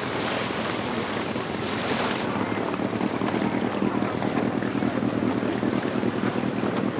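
Wind buffeting the microphone over the wash of water on a boat under way. A brighter hiss cuts off about two seconds in.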